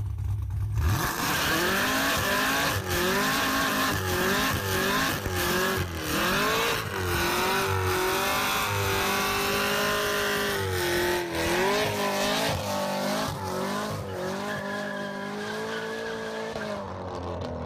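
Chevrolet Camaro ZL1's supercharged 6.2-litre LT4 V8 revving hard and repeatedly during a burnout, its pitch rising and falling, over the squeal of the spinning rear tyres. The revving starts about a second in.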